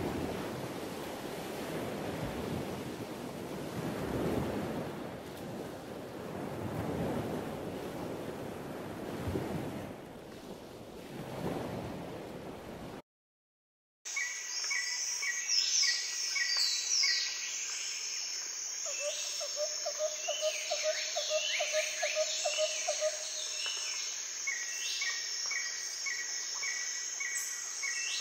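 Wind rushing over the microphone by open water, an even roar that cuts off about halfway through. After a second of silence, birds sing in chorus: quick high chirps, a note repeated over and over, and a steady low trill.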